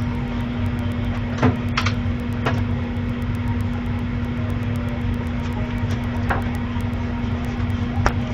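A steady motor hum, even in pitch throughout, with a few brief clicks and scrapes starting about a second and a half in.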